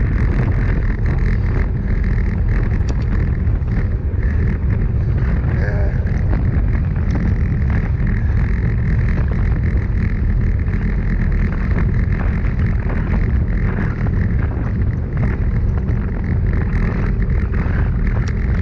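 Loud, steady wind rumble over the microphone of a handlebar-mounted action camera on a road bike moving at about 40 km/h.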